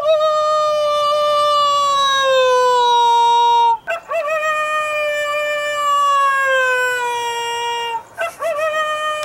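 Coyote howling: long, slowly falling howls about four seconds each, each starting with a short wavering rise. One follows another about four seconds in, and a third starts near the end.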